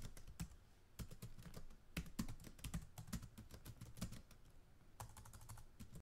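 Faint keyboard typing: quick, irregular key clicks, a few to several a second, with a denser run near the end.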